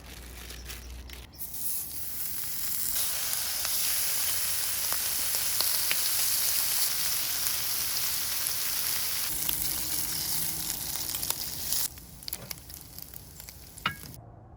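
Bacon sizzling in a hot pan, a steady hiss with scattered crackles from spattering fat. It starts about a second and a half in, grows louder, and falls away sharply near the end.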